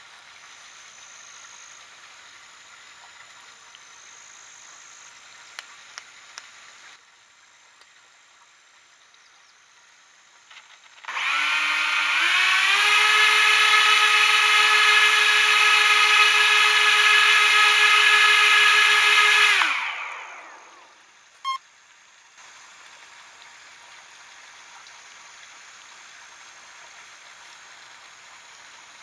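The boat's twin Racerstar 2205 brushless motors and propellers spin up at throttle, a high whine that rises in pitch, holds steady for about eight seconds, then winds down. The boat stays put, stuck fast in thick algae.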